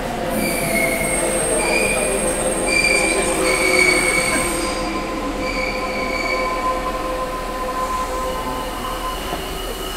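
Hanshin 9000 series electric train running, heard from inside the car, with its wheels squealing in a series of high-pitched tones that come and go over the running noise, as on a curve in the tunnel section.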